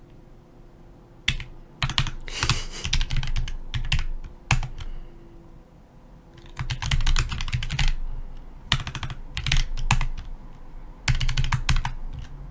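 Computer keyboard typing in several quick bursts of keystrokes with short pauses between.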